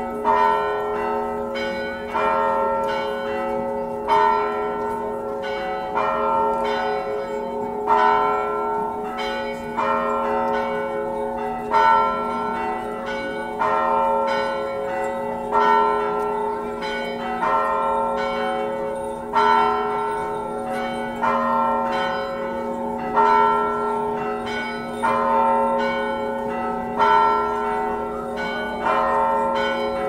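Church bells ringing a peal: several bells struck one after another in quick succession, the pattern coming round about every two seconds, their tones ringing on and overlapping.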